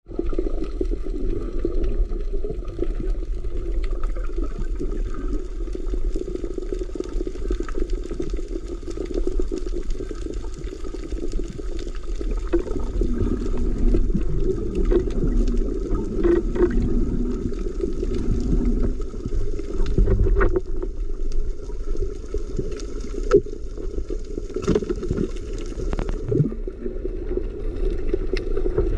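Muffled underwater sound heard through a submerged action camera: a steady rush of water with a low rumble and occasional faint clicks.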